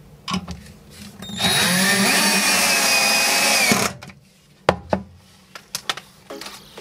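Cordless drill driver driving a screw into a concealed cup hinge's mounting plate. It spins up with a rising pitch, runs steadily for about two seconds and stops abruptly. A few sharp clicks and knocks follow.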